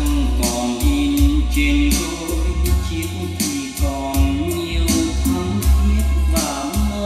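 A song with a sung melody over bass, drums and cymbals, played back through a pair of JBL L26 Decade loudspeakers.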